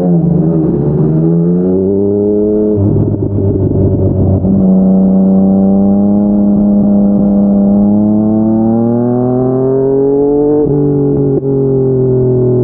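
Yamaha MT-09's three-cylinder engine through an aftermarket slip-on exhaust, accelerating through the gears. The pitch climbs and drops at gear changes about three and four and a half seconds in, then rises slowly for about six seconds before falling back and easing off near the end.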